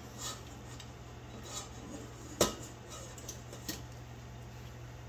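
Stainless-steel garlic press clicking and tapping against a stainless-steel saucepan as the garlic is worked out of it: a few light clicks, the loudest about two and a half seconds in, over a steady low hum.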